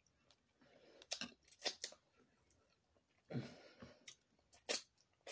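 Boiled crawfish being cracked, peeled and eaten: several sharp snaps of shell between stretches of wet chewing.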